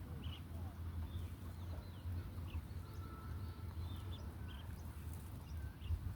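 Birds chirping in short repeated calls, with one held whistle about three seconds in, over a steady low rumble.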